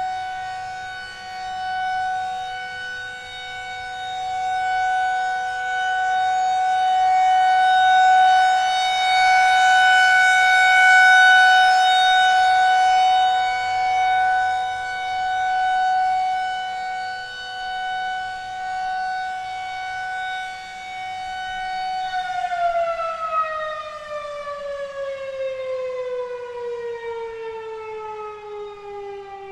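Federal Signal 2001-SRNB rotating electromechanical siren sounding a steady alert tone, its loudness swelling and fading every few seconds as it turns. About three-quarters of the way through it is switched off and winds down, its pitch falling steadily.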